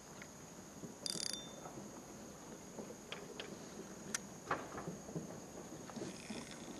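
Insects droning in one steady high tone, with a short rasp about a second in and a few scattered sharp clicks and ticks.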